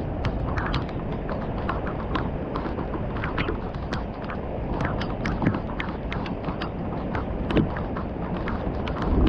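Thunderstorm rain falling steadily over a low rumbling background, with many large drops ticking and knocking irregularly on a hard surface close by. Near the end, thunder begins to rumble up louder.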